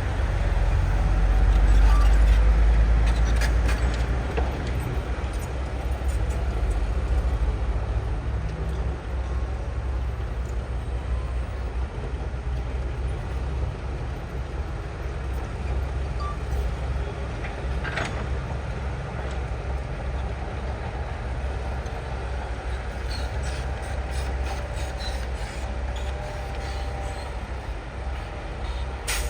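Diesel engine of heavy tracked earthmoving machinery running with a deep steady rumble, loudest in the first few seconds. A few sharp metallic clanks come through, one about midway and one near the end.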